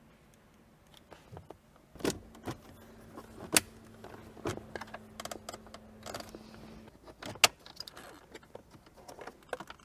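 Scattered clicks, knocks and small rattles of car interior trim pieces and tools being handled as the shifter knob and console cover come off, with a low steady hum for a few seconds in the middle.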